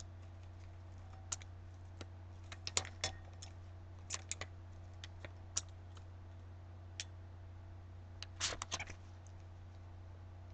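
Faint, irregular light clicks and taps of gloved hands handling a wine glass and pressing a plastic stencil onto it, loudest in a quick cluster near the end, over a steady low hum.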